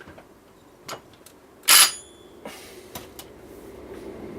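Scattered handling clicks and knocks, with one short burst from a DeWalt 10.8V cordless impact wrench's motor a little under two seconds in, followed by a steady low hum.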